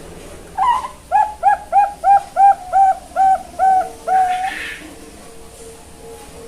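Young zebra dove (Bangkok-type perkutut) singing: one opening note, then a quick run of about nine short cooing notes, roughly three a second, ending on a longer held note.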